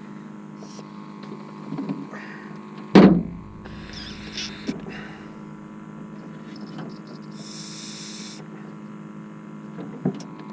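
A steady electrical hum, with a loud knock about three seconds in and short hissing bursts near four and eight seconds.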